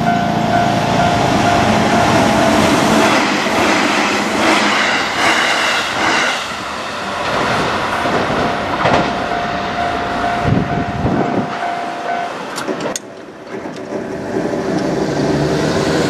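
An electric commuter train passing over a level crossing, its wheels clacking over the rail joints, while the crossing's electronic warning bell rings in a steady repeating tone. The bell stops about two-thirds of the way through.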